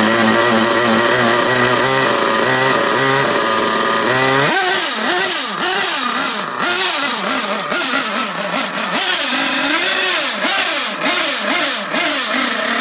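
A small nitro glow engine being cranked by an electric starter, a steady motor whine, for about four and a half seconds, then firing up. It then revs up and down over and over, with the pitch rising and falling in quick throttle blips.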